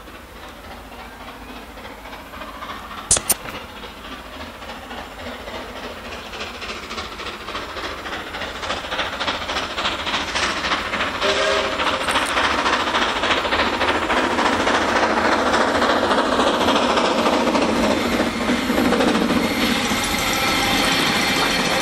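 AC16 steam locomotive hauling a passenger train toward the listener, its exhaust and the wheels on the rails growing steadily louder as it draws close. There are two sharp clicks a few seconds in, and a brief whistle about halfway.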